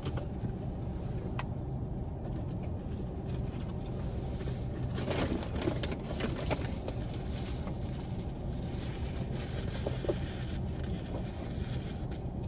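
Steady low hum of a car idling, heard from inside the cabin, with a few short clicks and rustles about five to six and a half seconds in.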